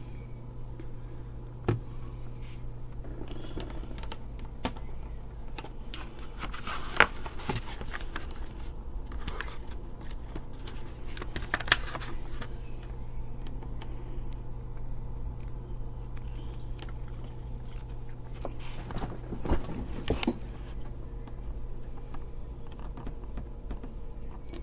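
Multimeter and test leads being handled while taking a current reading: scattered small clicks and light scrapes of probes and switch over a steady low hum.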